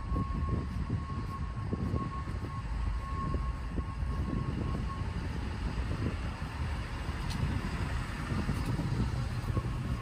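Diesel engine of a Sanitation Department wheel loader running close by, a steady low drone, with a thin high whine that drops out about halfway and returns near the end.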